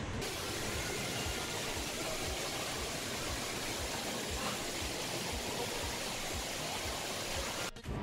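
Steady rushing-water noise of an indoor water park, an even hiss that drops out abruptly near the end.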